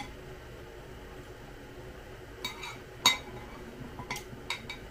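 Metal spoon clinking against a ceramic soup mug while stirring and scooping soup: a handful of short clinks, the loudest about three seconds in.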